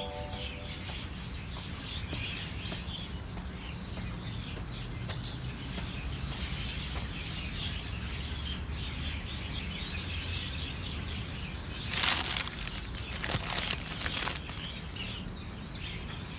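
Outdoor ambience of birds chirping over steady background noise, with a few short, louder noises about twelve seconds in.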